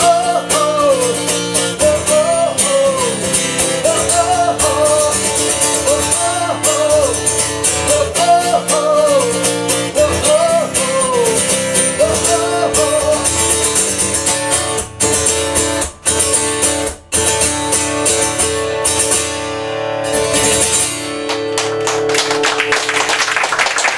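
A man singing over a strummed acoustic guitar. The vocal line drops out about halfway, and the guitar plays a few abrupt stops and a final strummed chord as the song ends. Clapping starts to build near the end.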